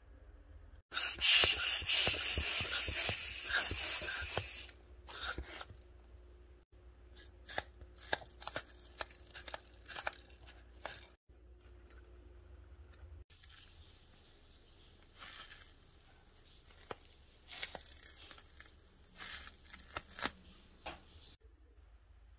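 Thick clear nano tape being peeled and stretched between the fingers: a loud sticky tearing hiss for about three seconds, then scattered crackles and clicks on and off.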